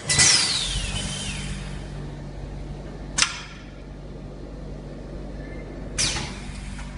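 Valve-bag filling machine running: a steady low motor hum with sudden hissing bursts of air, the first and last falling in pitch, and a short sharp hiss about three seconds in.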